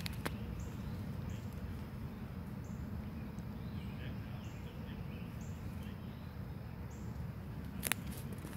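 Outdoor ambience: a steady low rumble with faint, short high chirps scattered through the first several seconds, and a sharp click near the end.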